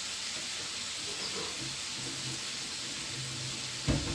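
A pan of stir-fried bitter melon and vegetables sizzling with a steady hiss. A short knock comes near the end.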